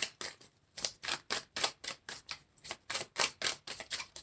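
Tarot deck being shuffled by hand: a quick run of light card clicks and slaps, about four a second.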